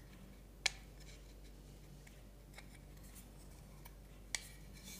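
Three faint, light clicks of a pencil and small pine workpieces being handled and tapped together, spread over a few seconds.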